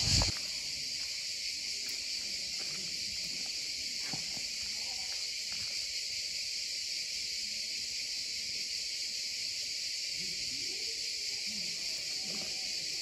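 Steady shrill chorus of insects: a continuous high buzz with no pauses or rhythm.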